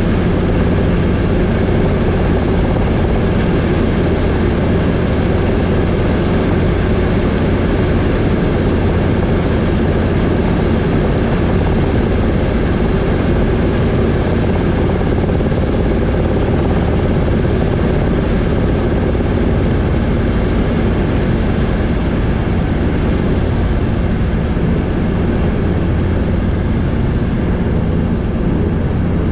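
Helicopter in flight: steady engine and rotor noise with a low, constant drone.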